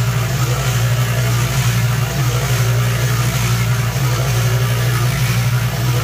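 Yardmax concrete mixer running, its drum turning and tumbling a load of wet concrete, with a steady low hum.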